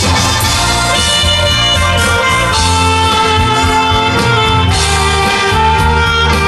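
Saxophone playing a melody of long held notes over a backing track with bass and drums.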